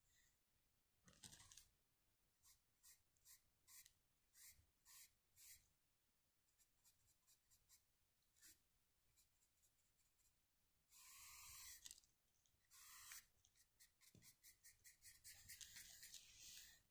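Faint paintbrush bristles scratching and dabbing on textured paper. Short strokes come about two a second, then two longer sweeps past the middle, then a quick run of small strokes near the end.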